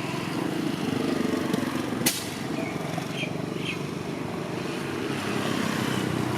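A small motor running steadily with a low drone, with a sharp click about two seconds in and a few faint high chirps soon after.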